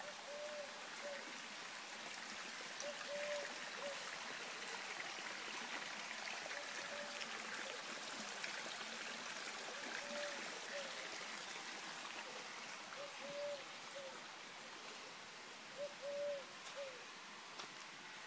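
Stream running steadily below, with a bird's low hooting call repeated every few seconds in groups of two or three short notes.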